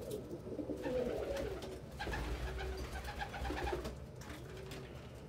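Domestic pigeons cooing, several calls overlapping, loudest in the first second and a half and softer after about four seconds. This is male pigeons cooing over nest boxes they are claiming and defending.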